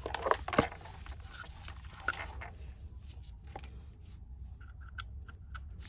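Handling noises on the bench: clicks and light scraping, busiest in the first two and a half seconds, then a few faint ticks, over a steady low hum.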